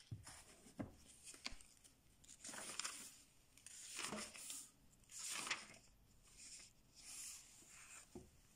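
Faint paper rustling as the pages of an old book are leafed through and handled: four or five soft swishes, with a few light knocks.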